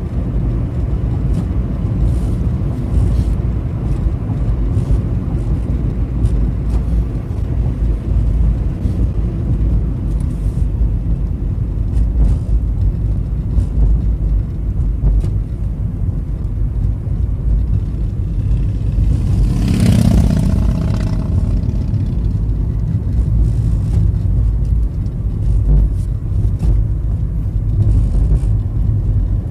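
Car driving, heard from inside the cabin: a steady low rumble of engine and tyres on the road. About two-thirds of the way through, a brief louder rush of noise rises over it and fades.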